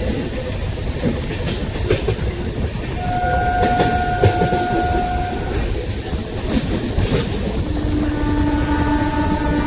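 Passenger express train running in, a steady rail rumble with wheel clicks over the rail joints. Its horn sounds one high-pitched blast of about two seconds a few seconds in, and a lower, fuller-toned horn note starts near the end and holds.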